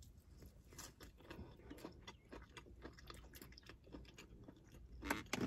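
Close-up chewing of a KFC crispy fried chicken wing: irregular mouth smacks and soft crunches of the breading, with a louder cluster about five seconds in.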